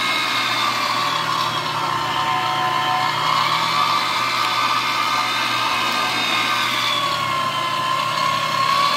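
Electric meat grinder running steadily, its motor whining as fried pork chicharrón with tomato, onion and chile is pushed through it with a plunger and ground. The whine dips slightly in pitch about seven seconds in and comes back up.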